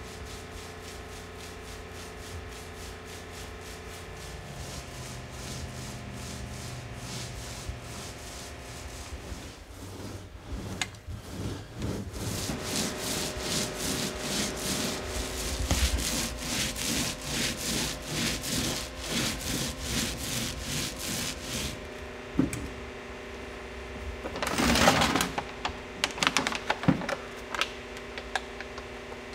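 Paintbrush brushing paint onto a school bus's riveted metal roof, rubbing back and forth in quick regular strokes, about one and a half a second. A single louder rough scrape comes later.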